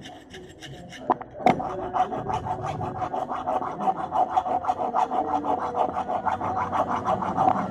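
Fine file rasping back and forth over the worn brake cam of a Honda Supra rear drum brake in quick, even strokes, after two sharp clicks about a second in. It reshapes the cam's worn, sharpened edge back into a rounded taper; that sharp edge is what scores the brake shoes and makes the drum brake stick.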